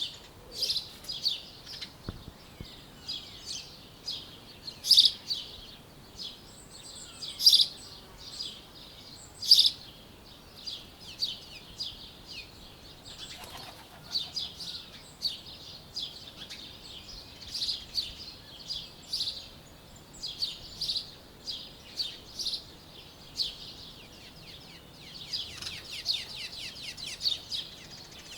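Morning birdsong: several small birds chirping and trilling in quick short phrases, with a few louder calls standing out in the first ten seconds.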